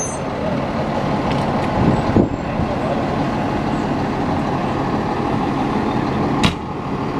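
Diesel engine of a 2012 KME fire pumper idling steadily. There are a few knocks about two seconds in and one sharp bang near the end.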